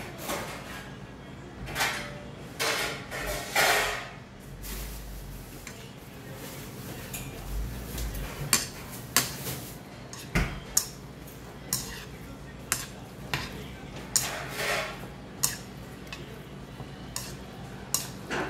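Metal spoon and metal chopsticks clinking and scraping against a ceramic bowl while jjajangmyeon noodles are mixed into their black-bean sauce. A few longer scrapes early on, then sharp separate clicks, about one a second, in the second half.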